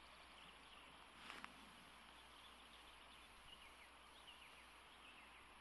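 Faint, steady rush of a fast-flowing river current, with a few faint bird chirps.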